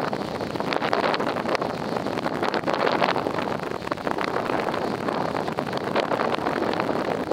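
Wind buffeting the camera microphone: a steady rushing with irregular gusty thumps and crackles.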